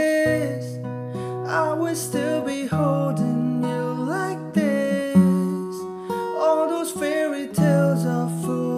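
Acoustic guitar played with a voice singing a slow melody over it.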